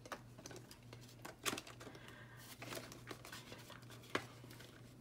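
Paper banknotes rustling and a clear plastic binder pocket crinkling as cash is slid into it, with scattered soft clicks and rustles, the sharpest about a second and a half in and again near the end.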